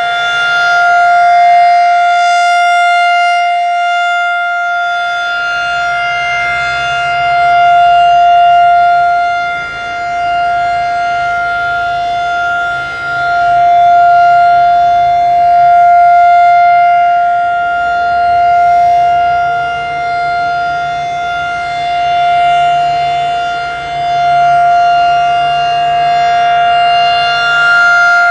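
Federal Signal 2001-SRN rotating outdoor warning siren sounding its steady 700 Hz alert tone for a monthly test, the one held pitch swelling and fading in loudness several times as the rotating horn turns.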